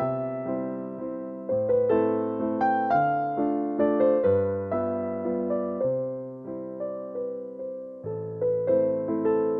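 Background piano music: a gentle melody of plucked-sounding keyboard notes over slow bass notes.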